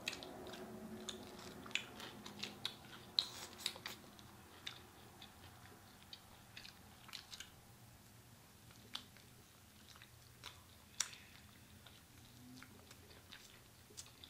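Two people chewing and gnawing meat off sauced chicken wings: faint wet smacks and small clicks, busiest in the first few seconds and sparser after.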